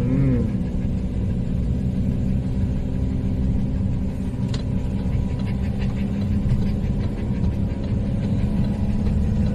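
Van-based motorhome's engine running at a steady pitch under a low rumble of tyres on a rough road, heard from inside the cab. A single brief tick comes about halfway through.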